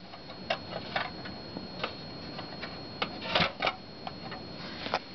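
Scattered light clicks and taps of a hand handling the small stall doors and partitions of a toy horse stable, with a short cluster of louder clicks about three and a half seconds in.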